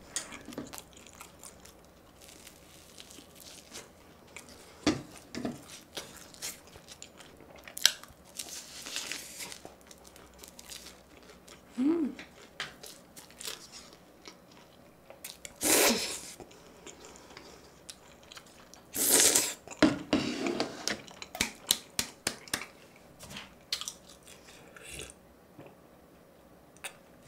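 Close-miked chewing and biting: a person eating a crispy battered corn dog and tteokbokki, with crunches and wet mouth sounds coming in irregular bursts, loudest about two-thirds of the way through.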